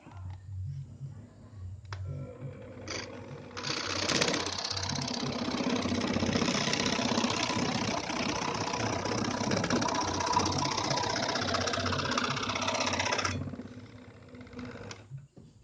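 Electric scroll saw running for about ten seconds, starting about three and a half seconds in and stopping suddenly near the end, on a test run with a blade held in its modified blade clamp.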